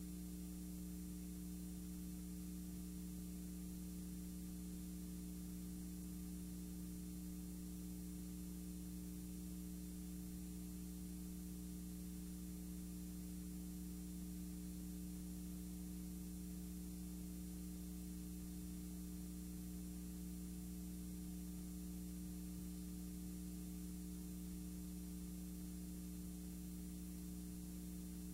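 Steady electrical hum, with a second, higher hum tone and a constant faint hiss under it: the background noise of a blank stretch of the recording, with no programme sound.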